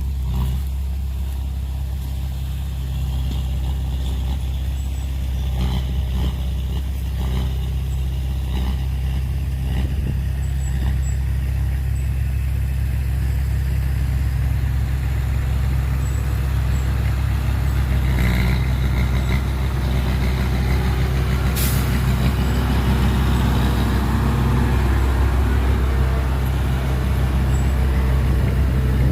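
Heavy dump truck's diesel engine running steadily, with a brief sharp hiss about two-thirds of the way through.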